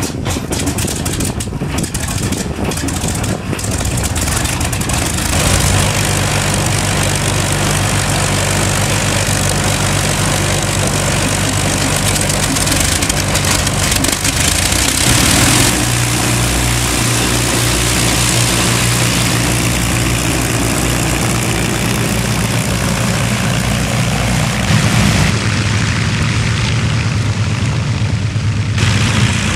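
Avro Lancaster bomber's Rolls-Royce Merlin V12 piston engines being started and settling into a steady run, the sound growing fuller as more engines catch, about five and again about fifteen seconds in. Near the end the engines are idling as the bomber taxis.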